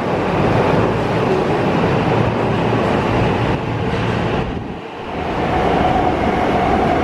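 Commuter train running into or past the station platform: a loud rolling rush of wheels and air, easing briefly about five seconds in, after which a steady whine comes in.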